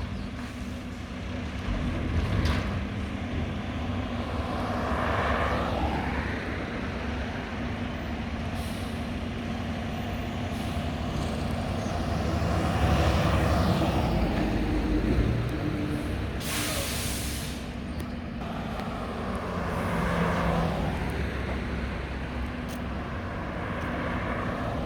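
Mack garbage truck with a McNeilus front-loader body, its engine running and swelling up and back down several times, with a short sharp air-brake hiss about two-thirds of the way through.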